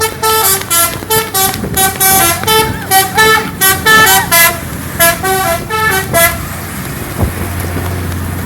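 Indonesian bus 'telolet' horn, a multi-tone musical air horn, playing a quick, loud run of short toots that change pitch from note to note, stopping about six seconds in. A low, steady engine drone is left after it.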